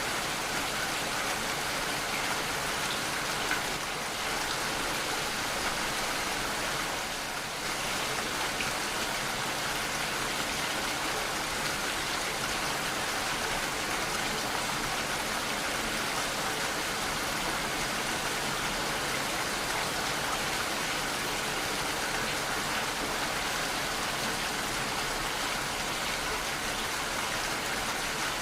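Steady, even rainfall, a constant hiss of raindrops with no thunder.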